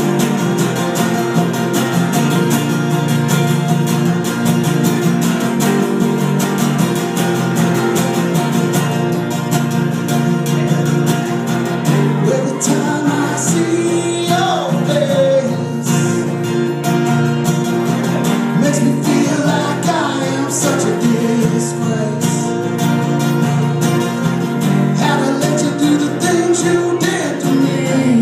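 Live band music with guitar and singing, loud and continuous.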